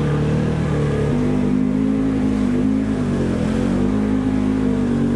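Polaris side-by-side's engine running under load in four-wheel drive through floodwater, its pitch stepping up about a second in and then wavering up and down.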